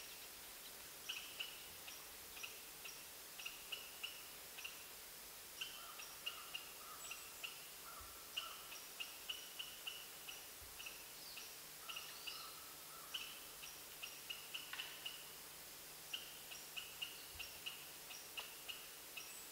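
Faint, quick series of short high chirps, several a second, from a small bird calling, with a few lower whistled notes mixed in and one sharp snap about fifteen seconds in.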